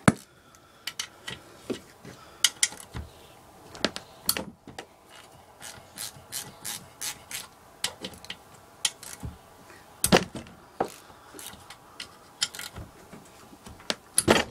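Hand ratchet clicking as it turns the cylinder head bolts on a small Briggs & Stratton engine: irregular clicks a few per second, with a few louder metallic knocks.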